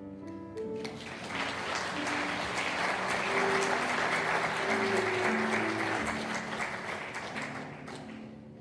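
Congregation applauding, building about a second in and fading near the end, over soft instrumental music.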